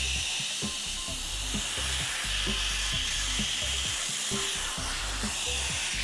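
A 2,800-watt professional pet dryer blowing on its lowest setting: a steady rush of air with a high hiss, over background music.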